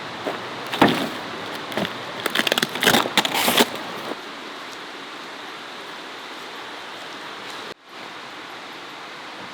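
A steady hiss with a run of sharp knocks and clatters in the first few seconds, then the sound cuts out briefly near the end.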